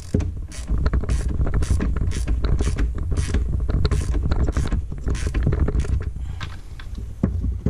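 Ratchet wrench clicking in repeated strokes, a little under two a second, as the snowmobile chaincase's chain-tensioning bolt is run down, over low rumbling handling noise.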